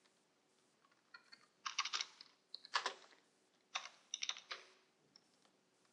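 Computer keyboard being typed on, faint, in a few short bursts of keystrokes with pauses between.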